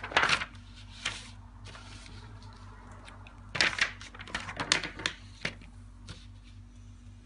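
Sheets of paper rustling and slapping as they are lifted, flipped and laid on a desk, in a few short bursts, the busiest from about three and a half to five seconds in.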